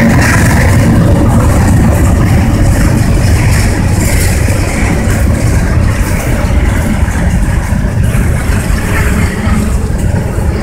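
CSX diesel-electric freight locomotive running past at close range, its engine and wheels giving a loud, steady rumble. It is followed by covered hopper cars rolling by on the rails, the rumble easing slightly in the second half.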